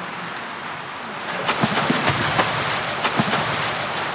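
Water splashing and sloshing around dolphins swimming at the surface of a shallow pool, with a run of short sharp splashes about halfway through.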